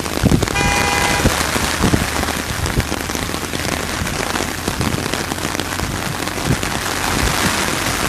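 Heavy rain pattering steadily on an umbrella held over the microphone, with many close drop ticks. About half a second in, a car horn sounds one short steady beep.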